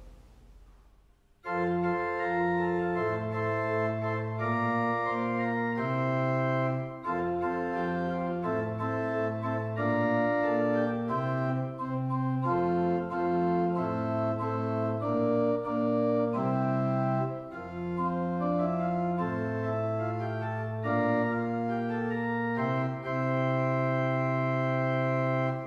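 Pipe organ playing a slow piece in sustained chords over a low pedal bass line. It starts about a second and a half in and closes on a long held chord.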